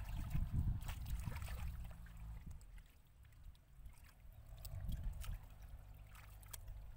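Hands sloshing and splashing through shallow muddy water while groping in the mud for fish, with wet squelches. It is busiest in the first couple of seconds, goes quieter briefly, then picks up again about five seconds in.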